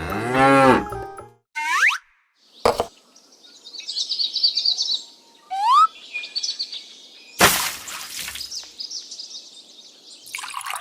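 A string of added sound effects: a cow's moo in the first second, then high bird-like chirps, a short rising whistle about halfway through, and a sharp hit at about seven and a half seconds.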